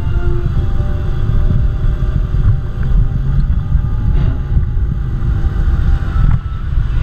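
Open Radiator Springs Racers ride car rolling along its track, with wind buffeting the camera's microphone as a steady low rumble. Faint music fades out within the first second, and the rumble dips briefly near the end.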